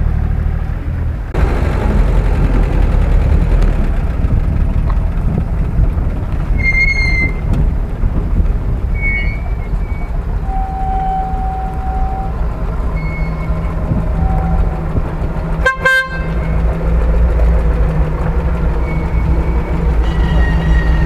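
Off-road 4x4 engines running at low revs, a steady low rumble, as vehicles crawl down a muddy slope. A short horn toot comes late on, after a few brief high whistle-like tones.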